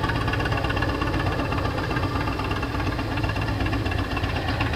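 Large cruiser motorcycle's engine running at low revs while the bike is ridden slowly through a cone course, a steady low rumble with a fast pulsing flutter.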